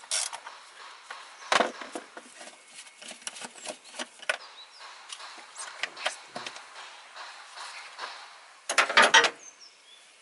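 A 10 mm socket wrench on an extension undoing a nut on a plastic engine cover. Scattered metal clicks and knocks, with a louder knock about a second and a half in and a quick run of clicks near the end.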